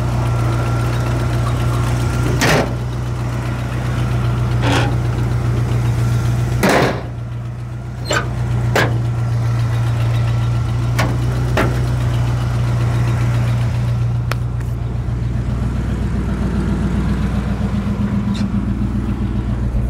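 1973 International Loadstar 1700 truck's engine running steadily at idle, with several sharp clacks over it. About two-thirds of the way in, the engine note rises as it pulls away.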